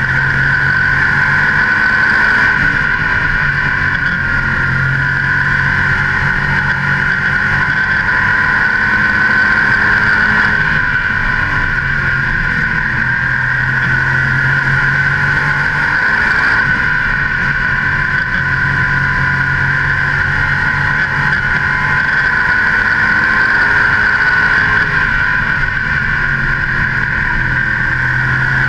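Modified race car's carbureted V8 running at racing speed, picked up loud on the hood beside the air cleaner. Its pitch swells and sags in slow, repeating cycles as it gets on and off the throttle around the oval.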